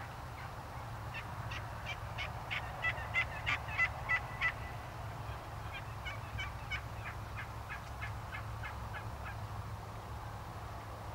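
Wild turkeys calling: a long run of short, sharp notes, about three a second, loudest a few seconds in and then trailing off.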